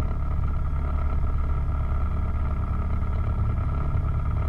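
Piper PA-28 Cherokee's piston engine and propeller idling, a steady drone heard from inside the cabin.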